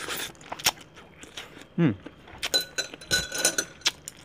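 A run of light clinks and knocks of tableware being handled, a few of them ringing briefly. A short grunt about two seconds in.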